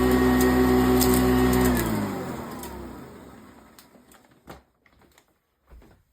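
Eureka self-propelled upright vacuum cleaner running steadily, then switched off about two seconds in, its motor whine falling in pitch and fading as it winds down to a stop over the next couple of seconds. A few faint clicks and knocks follow.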